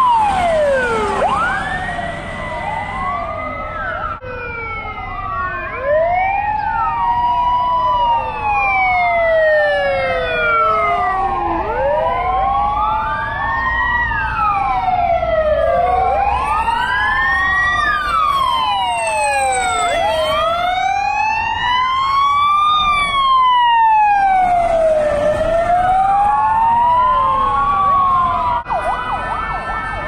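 Several fire engine sirens wailing at once, each sweeping slowly up and down in pitch at its own pace so that the wails overlap and cross. Near the end the sound changes to a faster, choppier siren pattern.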